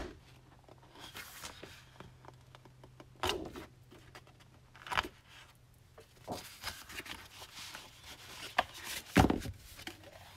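Sheets of patterned scrapbook paper rustling and flapping as they are handled and laid onto piles. There are several separate brushes and slides, the loudest a little after nine seconds in.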